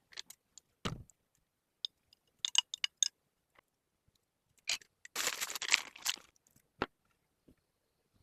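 Scattered small clicks and clinks of objects being handled, with a dull thump about a second in and a rustle or scrape lasting about a second a little past the middle.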